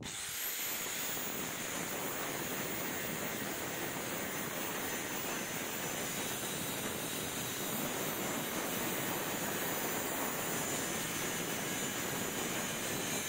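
A 125 mm angle grinder running steadily at full speed, its abrasive disc grinding the steel top face of a railroad rail: a constant hiss of grinding with a high motor whine over it.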